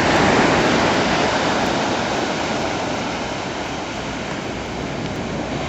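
Ocean surf washing on the beach: a steady rush that is loudest near the start and slowly eases off.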